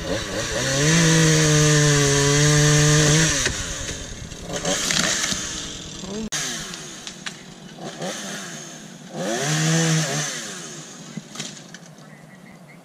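Chainsaw cutting up in a pine tree: it revs up to a steady full-throttle pitch for about three seconds, drops back, runs lower and rougher, then revs up again briefly about nine seconds in.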